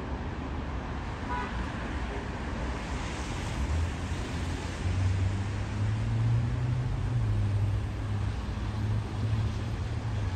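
Road traffic: a low engine rumble builds about four seconds in and holds over a steady wash of traffic noise. A short beep or toot sounds about a second and a half in.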